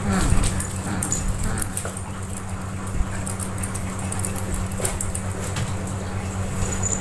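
Kittens playing on a tiled floor around a plastic laundry basket: scattered light knocks and scrapes of paws and bodies, with a short kitten mew near the start.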